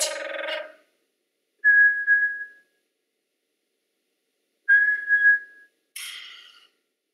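Two loud human-whistled notes at the same high pitch, each about a second long and held steady, with breath audible around them. A short vocal sound opens the stretch, and a breathy hiss follows the second whistle.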